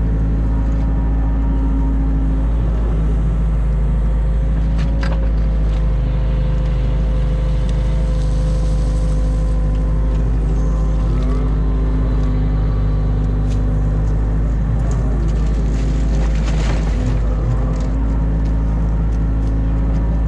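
New Holland Kobelco E50.2 mini excavator running steadily while working, its engine and hydraulics giving a constant low drone with a steady whine over it. A few sharp knocks come from the working arm and bucket.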